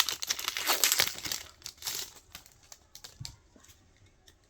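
Foil wrapper of a Pokémon TCG booster pack crinkling and tearing as it is ripped open, busy for about the first two seconds, then a few soft rustles and taps that die away.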